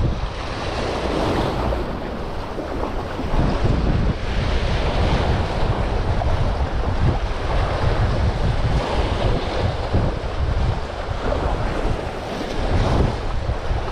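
Wind buffeting the microphone in gusts over the steady wash of surf against the jetty.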